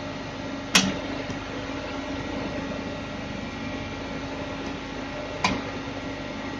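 Steady electrical hum and fan-like running noise from a stress-relieving heat-treatment machine's control panel, with two sharp clicks, one about a second in and another about five and a half seconds in.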